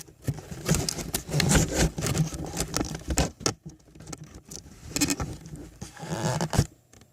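Handling noise from a camera being picked up and repositioned: irregular rustling, bumps and clicks of hands and the device against things.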